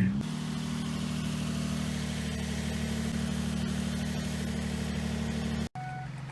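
Car engine idling steadily on a cold start, with a low, even pitch. About two-thirds of the way through, the sound cuts off abruptly.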